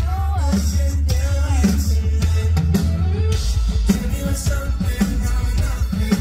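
Live band music with a steady drum beat, a drum stroke about once a second over a constant bass, and a gliding melody line on top.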